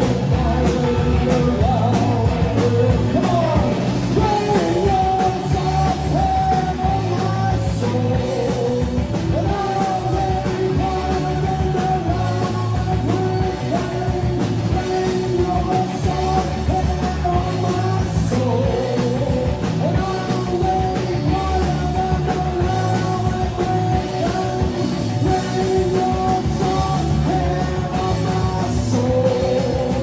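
Live rock band of two electric guitars, electric bass and drum kit playing at a steady loudness, with long held guitar notes over the beat.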